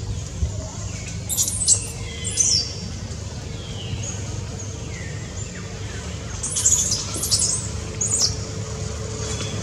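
Short, very high-pitched shrill chirping calls: a few about a second in, and another run around seven to eight seconds in, over a steady low background hum.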